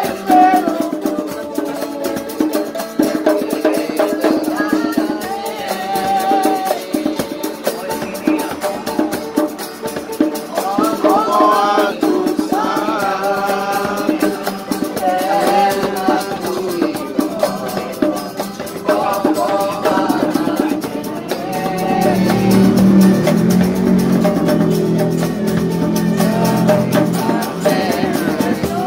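Street musicians performing a song: a strummed acoustic guitar in a steady rhythm with a voice singing the melody over it.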